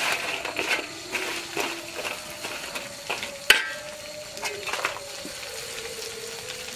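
Metal utensil scraping and clinking against a cooking pan as food is stirred, irregular strokes with one sharp clink about three and a half seconds in.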